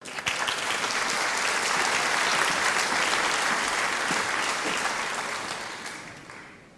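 Audience applauding, a dense patter of many hands that starts suddenly, holds steady, and fades out near the end.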